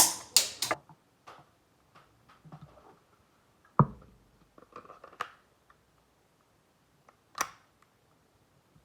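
Mechanical clicks and clacks from handling a Glock 17 replica air pistol: a quick cluster at the start, then single sharp clicks about four, five and seven and a half seconds in.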